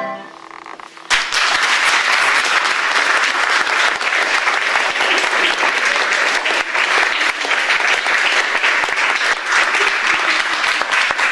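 The last held note of a small school recorder ensemble ends about a second in, and an audience bursts into steady, dense applause that carries on to the end.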